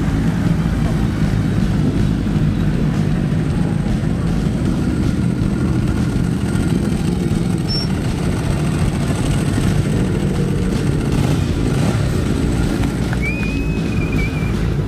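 Several racing superbike engines running steadily at low revs as the bikes roll slowly in a queue onto the start grid.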